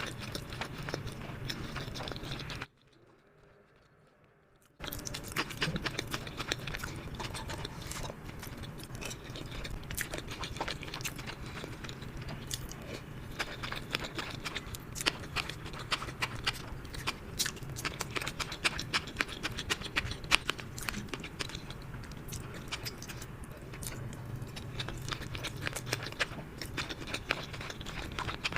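Close-miked eating: chewing and biting with wet mouth clicks and crackles, dense and irregular, over a faint steady low hum. The sound drops to near silence for about two seconds about three seconds in.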